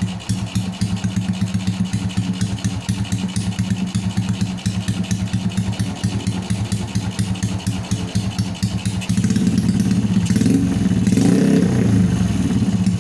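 Honda Supra Fit New 115 cc motorcycle engine being warmed up, idling steadily. About nine seconds in it is revved, getting louder and rising and falling in pitch for a few seconds before settling back.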